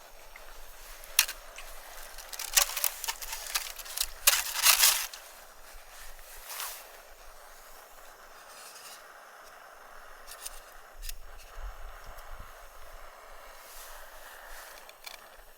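Hard wind rushing through trees, with scattered sharp crackles and clicks, bunched in the first five seconds, and a low buffeting of wind on the microphone about eleven seconds in.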